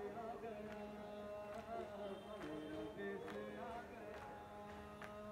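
A male voice chanting a noha lament into a microphone in long, held melodic lines, with a few sharp slaps sounding from the crowd now and then.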